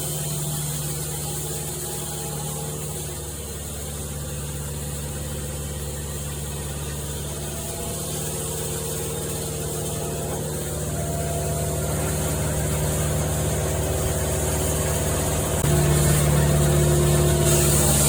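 An engine running steadily with a low hum. It grows gradually louder, then jumps up in level about three quarters of the way through.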